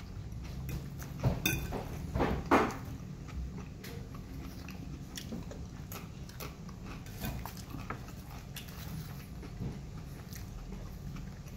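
Eating sounds: chewing crunchy plantain chips, with a metal fork clinking and scraping on a plate. A few louder clinks come between one and three seconds in.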